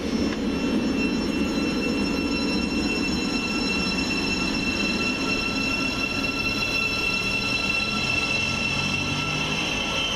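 Thameslink Class 700 electric multiple unit moving through the platform: a steady rumble of the train with several steady high-pitched whining tones above it, growing a little stronger near the end.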